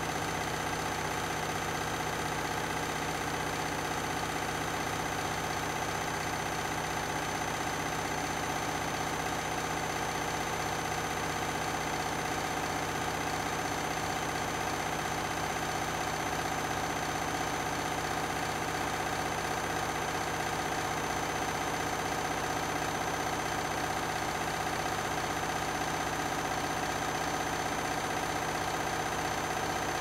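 Candy Grand'O Vita front-loading washing machine running its drain-and-spin programme: a steady motor hum and whine holding several tones at one unchanging pitch.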